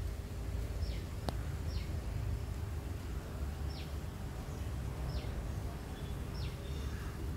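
A bird repeats short chirps that drop in pitch, about one every second or two, over a low rumble. A single sharp click comes about a second in.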